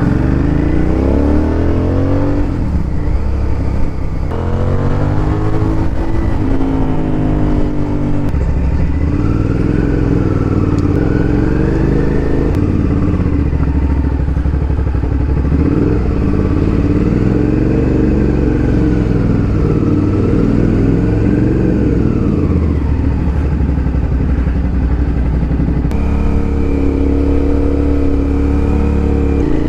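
Suzuki SV650S 645 cc V-twin engine under way, rising in pitch twice in the first few seconds as the bike accelerates through the gears, then running at a steadier cruising speed with the pitch rising and falling a little.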